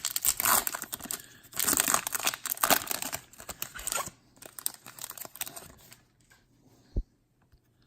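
A foil trading-card pack wrapper being torn open and crinkled, loud crackling that thins out by about six seconds in, followed by one soft low thump near the end.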